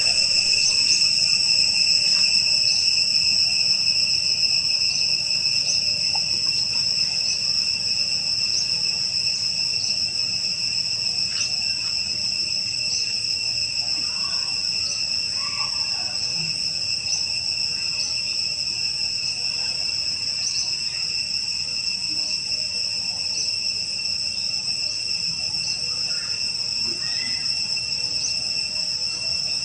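Continuous high-pitched insect drone, steady throughout, with faint high ticks repeating about once a second.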